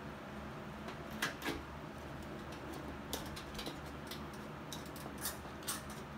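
Scattered light clicks and taps as a Harley-Davidson fuel pump assembly, with its fuel hose and wiring, is handled and fed back into the gas tank, over a steady low background hum.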